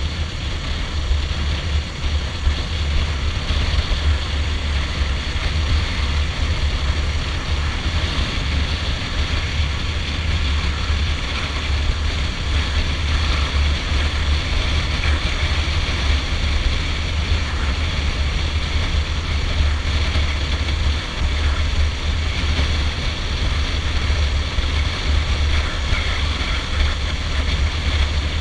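Stallion Centaur 250 Max motorcycle cruising at road speed, its engine running steadily under a constant rush of wind and road noise.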